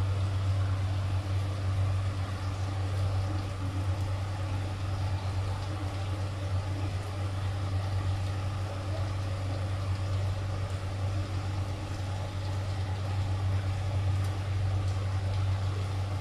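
Steady low mechanical hum, unchanging, like a motor or fan running.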